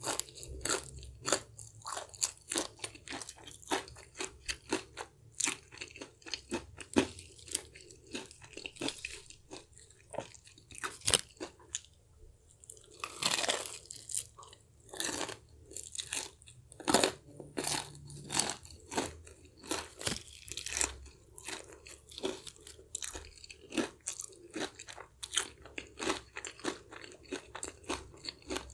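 Close-up crunching and chewing of crispy KFC fried chicken: bites into the crunchy coating and rapid, irregular crunchy chews, with a noisier second-long stretch of chewing a little before halfway.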